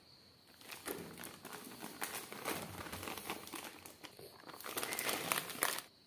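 A plastic flour packet crinkling and rustling as wheat flour is poured from it into a metal bowl. The crackly rustle starts about a second in and stops abruptly near the end.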